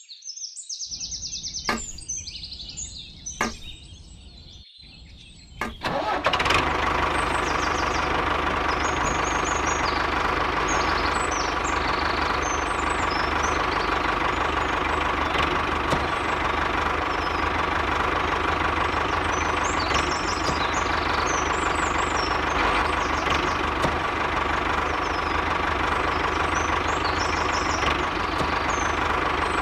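Birds chirp and there are two short clicks. About six seconds in, the miniature tractor's motor starts with a steady engine-like running sound that carries on without change, while birds keep chirping.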